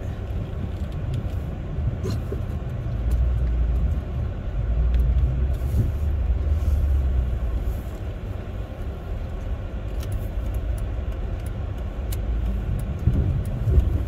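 Chrysler 300C's Hemi V8 and its tyres on a snow-covered road, a steady low rumble heard from inside the car's cabin while driving.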